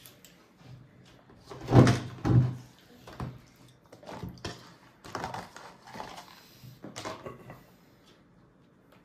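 Two louder thumps about two seconds in, followed by a string of lighter knocks and rustles that die away near the end.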